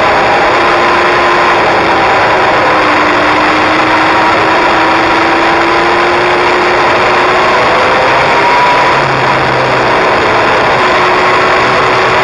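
Kawasaki inline-four sport bike engine running under way at steady mid revs, its pitch sagging slightly and then rising again as the rider leans through the bends. Heavy wind and road rush sits under the engine note the whole time.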